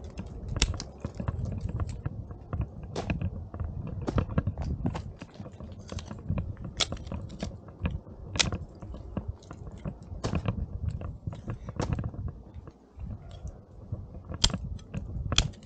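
Footsteps crunching on snow and ice: irregular sharp crunches, the loudest every second or two, over a low rumble.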